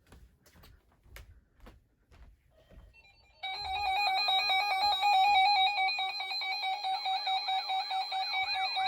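Weather radio receiver's alert alarm: a loud, buzzer-like electronic tone that starts suddenly about three and a half seconds in and warbles rapidly without stopping. Before it there are only faint clicks.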